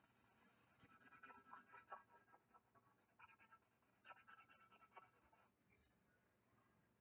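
Black Sharpie permanent marker scratching faintly across paper in quick, repeated strokes as a band is coloured in, in bursts between about one and five seconds in.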